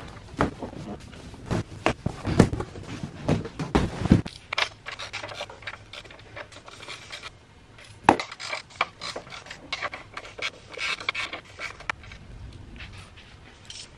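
Cardboard being handled and pulled away, rustling with dull thumps for about four seconds. Then a hand wrench clinks and scrapes as lag screws holding an electric motor to a wooden pallet are worked loose.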